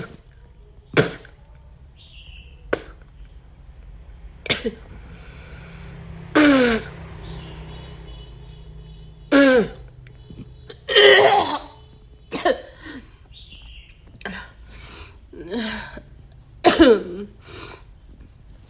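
A woman coughing and hawking in harsh, irregular bouts, about a dozen over the stretch. Some are short, sharp coughs; others are longer, strained, falling vocal heaves of retching.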